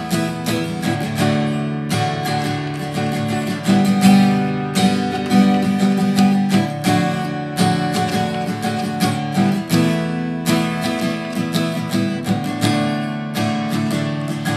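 Steel-string acoustic guitar strummed in a steady rhythm of chords, with no singing.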